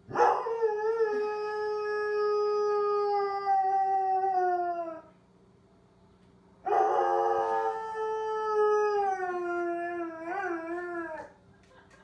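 Airedale terrier howling along with a civil-defence tornado siren: two long howls with a short pause between, each sliding down in pitch at the end, the second wavering near its close. A faint steady siren tone sounds underneath.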